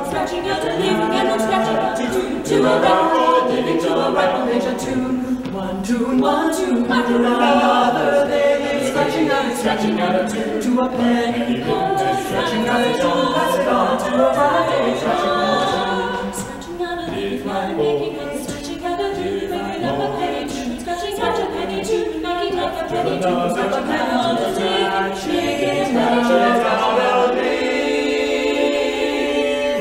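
Mixed male and female a cappella ensemble singing in close harmony, a rhythmic, syncopated part-song in Appalachian folk style. The voices settle onto a held chord near the end.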